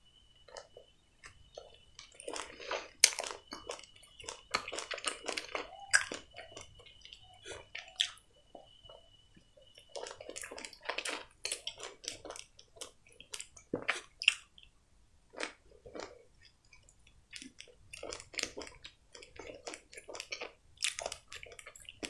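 Close-miked chewing of a crusty toasted baguette slice spread with pâté: a bite, then irregular bouts of crunching and wet mouth sounds.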